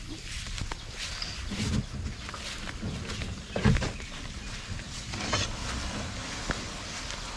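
A small paddle boat's hull scraping and knocking as it is dragged and pushed into the water, with one heavy thump about halfway through.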